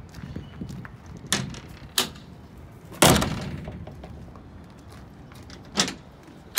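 Metal clanks and knocks of a truck's side equipment-compartment door being unlatched and opened by hand: a few sharp knocks, the loudest about three seconds in with a short ringing tail, and another near the end.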